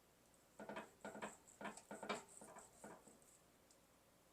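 A filleting knife sawing through a seared tomahawk steak: a quick run of about eight faint, scratchy strokes over two seconds or so, then stillness.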